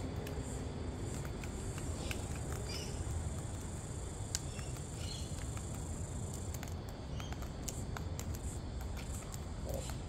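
Outdoor ambience: a steady high insect drone that stops about two-thirds of the way through, over a low rumble, with scattered small clicks and taps from sulphur-crested cockatoos feeding.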